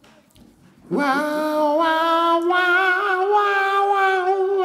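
A man sings one long held note into a handheld karaoke microphone. The note starts about a second in with a quick upward scoop and then holds steady, rising slightly, to the end.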